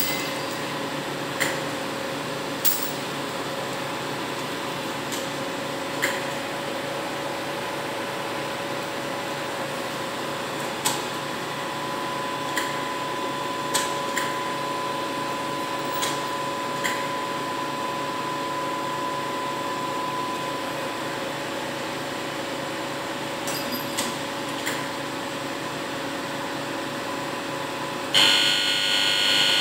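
A truck-mounted loader crane's machinery hums steadily, broken by a dozen or so short metallic clinks from the lifting chains being handled. About two seconds before the end, a much louder high-pitched whine starts as the crane's hydraulics take up the load.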